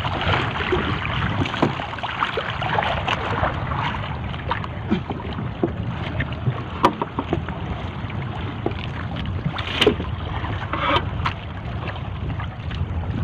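Gill net full of tamban sardines being hauled over a boat's side by hand: a dense wet crackle and patter of fish flapping in the mesh and net rustling, with a few sharper slaps, over a steady low rumble.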